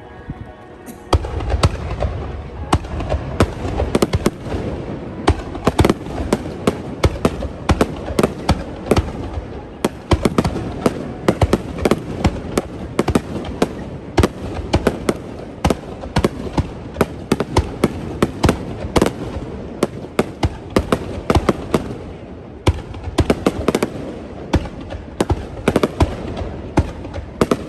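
Fireworks display: a rapid barrage of aerial shells bursting, starting about a second in, with sharp bangs and crackles several times a second over a continuous low rumble.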